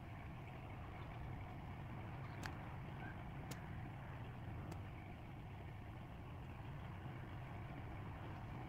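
A steady low engine hum, with a few faint clicks.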